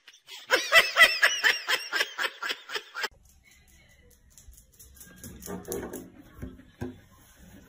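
A person laughing in quick, high-pitched repeated notes for about two and a half seconds, then only faint, indistinct low sounds.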